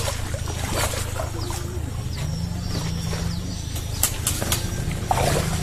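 A hooked patin (pangasius catfish) thrashing at the surface of a pond, a few sudden water splashes with several close together about four seconds in, over a steady low hum.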